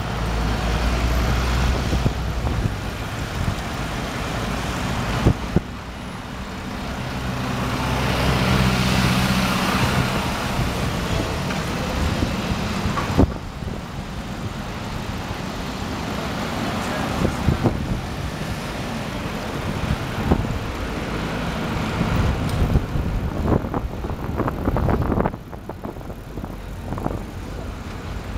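City road traffic heard from a moving bicycle: motor vehicles running alongside and passing, with a deeper engine hum that swells and fades about a third of the way through. A few sharp knocks stand out now and then.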